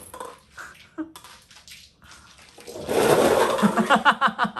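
Many light paper cups clattering and tumbling over as a cat bounds through them: a few scattered taps, then about three seconds in a loud, dense rustling clatter with quick hollow knocks.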